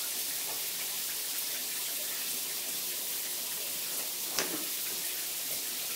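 Shower water running steadily into a bathtub, an even hiss, with one brief knock about four and a half seconds in.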